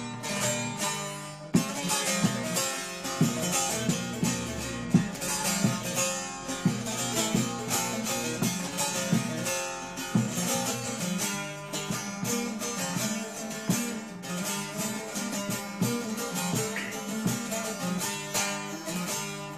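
Instrumental interlude of a Turkish folk song: a plucked string instrument playing a busy melody of quick, sharply picked notes over a strummed accompaniment, with no singing.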